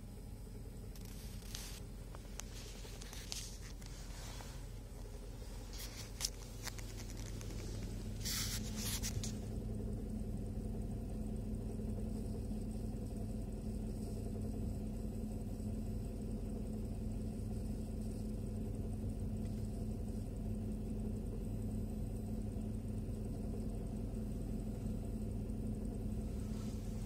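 Car engine running steadily, heard from inside the cabin, with a few short knocks in the first several seconds. From about eight seconds in the engine note becomes louder and stays that way.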